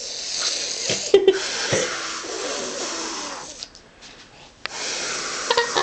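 A small child blowing spit noises through the lips, wet sputtering hisses: one long bout broken briefly about a second in, then a second bout starting near the end.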